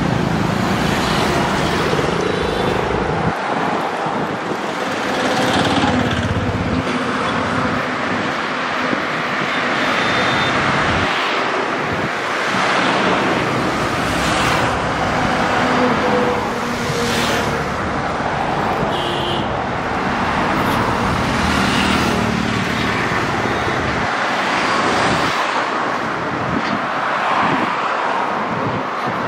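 Highway traffic noise: a steady rush of moving vehicles, swelling each time one passes close, with engines running nearby.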